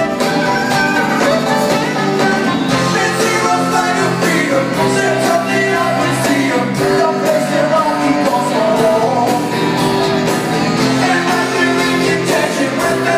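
A live rock band with guitars plays while several voices sing, heard from out in the audience of a large theater hall.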